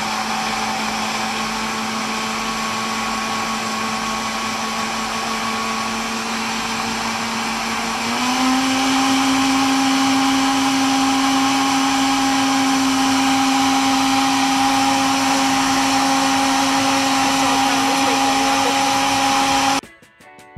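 Countertop electric blender running, blending milk and mango chunks into a milkshake: a steady motor whir that steps up to a higher pitch and louder about eight seconds in as the speed is raised, then stops abruptly near the end.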